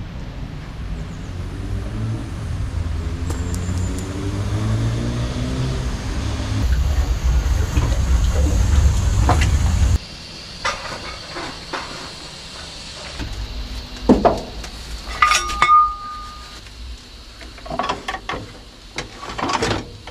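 Water rushing from a water crane's hose into a steam locomotive's tank: a loud low rushing with a tone rising in pitch over several seconds, which cuts off suddenly about halfway. After it, quieter metallic clanks and knocks with one short high tone.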